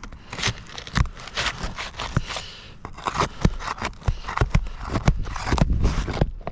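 Asphalt roof shingle being pried up, its tar sealant strip cracking and tearing loose in an irregular run of crackles and scrapes. The shingle is brittle and creases as it is lifted.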